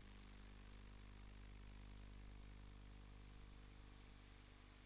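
Steady low electrical hum with constant hiss, unchanging in pitch or level.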